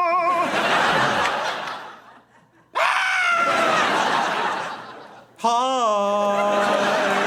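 Three long human yawns, one after another. Each starts with a rising voiced groan and trails off into a breathy exhale; the third holds a steady low note before fading.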